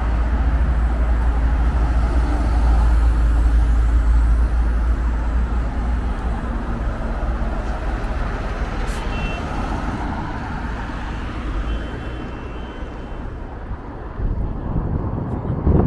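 Road traffic noise from passing vehicles, with a deep rumble that is loudest a few seconds in and slowly eases off. A brief sharp click sounds about halfway through.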